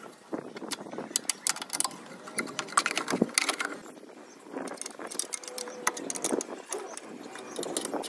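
A spanner clinking and scraping against a car horn's mounting nut and bracket as the horn is being fitted: an uneven string of short metallic clicks and clinks.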